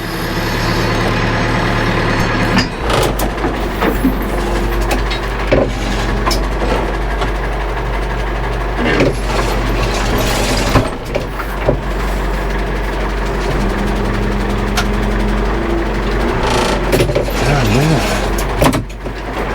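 Backhoe tractor's engine running steadily under working load, its pitch shifting a few times, with intermittent knocks and clatter from the machine at work.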